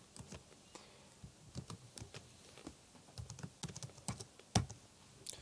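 Typing on a computer keyboard: a run of irregular key clicks, with one louder click near the end.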